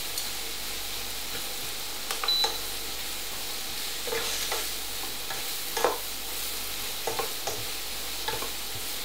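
Chunky-cut leeks sizzling in chicken fat in a frying pan on a medium-low heat, stirred around with a utensil that scrapes and knocks against the pan every second or two.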